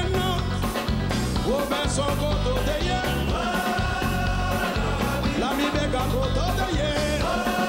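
Live kompa band music with singing over a steady bass beat.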